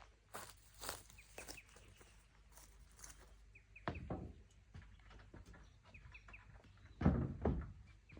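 Small birds chirping in short, quick high notes in little groups, over a few scattered knocks and thumps, the loudest cluster of thumps near the end.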